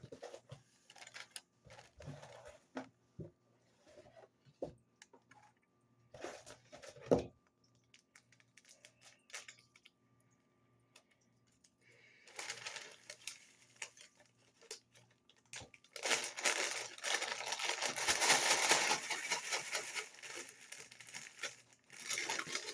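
Paper packaging handled: scattered crinkles and taps, then from about two-thirds in several seconds of loud, continuous rustling, as when McDonald's shaker fries are shaken with their seasoning in the paper bag.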